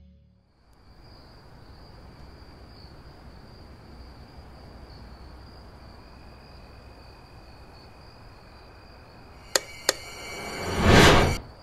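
Quiet night-time ambience with a thin steady high-pitched trill. Near the end come two sharp clicks and then a loud swelling whoosh effect that cuts off abruptly.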